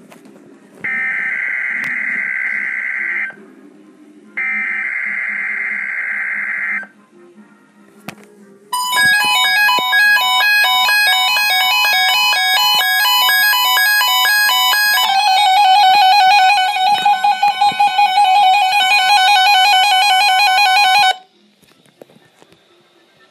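NOAA weather radio Required Weekly Test: two long bursts of buzzing SAME data tones from the broadcast, then several weather radio receivers sound their alert alarms together, layered electronic beeping and warbling tones. The alarms change pattern about halfway through and cut off suddenly.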